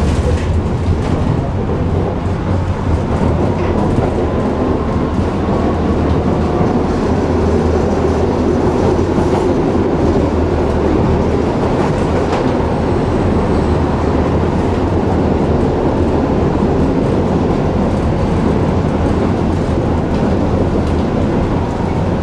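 Tram running along the track: a steady low rumble of its motors and wheels on the rails.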